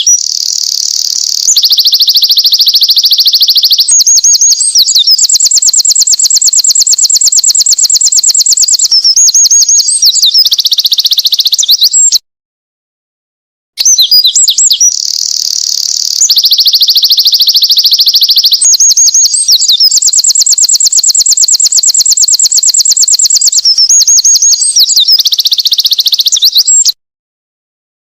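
Winter wren singing: a long, high-pitched song of rapid trills and warbles, heard twice with a short silent gap about twelve seconds in. The two songs are identical, a looped recording.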